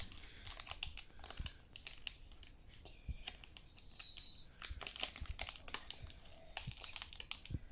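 Plastic packaging crinkling and crackling in irregular little clicks as it is handled and opened.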